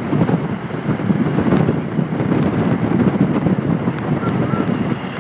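Steady rumble of a moving vehicle with wind rushing over the microphone.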